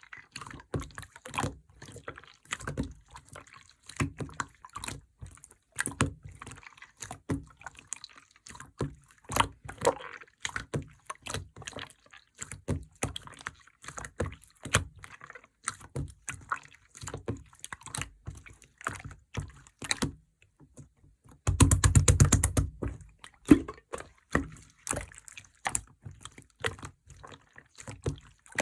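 Clear slime being squeezed, pressed and stretched by hand, giving irregular wet clicks and pops as air bubbles burst. About two-thirds of the way in, a fast, louder run of pops lasts a second or two.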